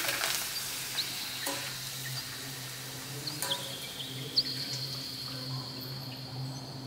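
Hot oil sizzling in a cast-iron skillet as a puri deep-fries, with a few sharp clicks of metal tongs against the pan as it is turned and lifted.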